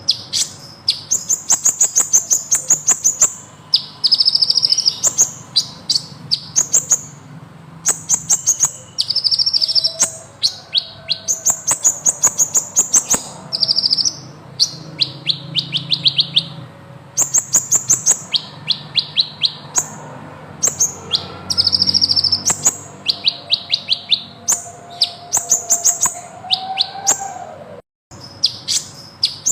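Sunbird singing vigorously in long, rapid trills of high chirps, phrase after phrase with short pauses between them.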